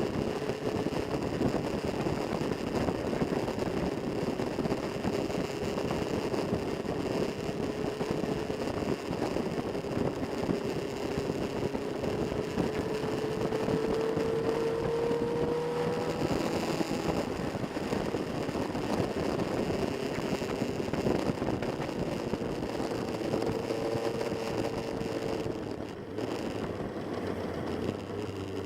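Motorcycle engine running steadily under dense road and wind noise, its pitch rising slightly around the middle.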